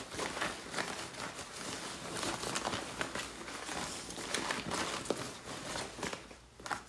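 Deck of reading cards being shuffled and handled: irregular rustling and light clicks of card against card.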